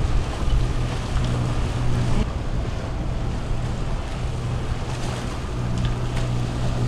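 A boat under way: a steady low engine hum under the rush of wind on the microphone and water moving past the hull.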